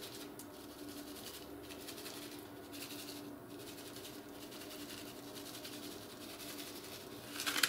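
Soft, intermittent rattling and hiss of dried pizza seasoning being shaken from a shaker onto open sandwiches, over a faint steady hum.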